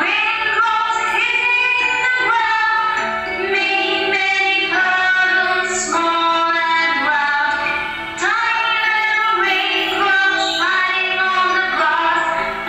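A woman's voice singing a children's nursery rhyme with music, in short phrases of held notes, with a brief dip about eight seconds in.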